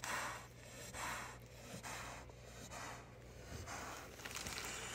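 Faint, rhythmic breathing close to the microphone, a soft puff of breath about once a second, over a steady low hum.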